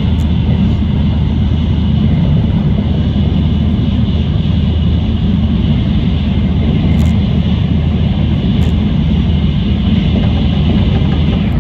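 Steady running noise inside the passenger cabin of a Shinkansen bullet train travelling at speed: a deep, constant rumble with a hiss on top.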